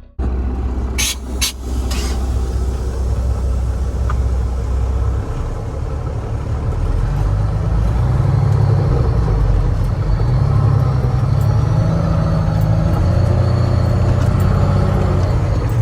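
Heavy vehicle's engine running steadily as a low drone, with a few sharp clicks about a second in. The engine note grows louder and rises from about six seconds on, as if pulling under load.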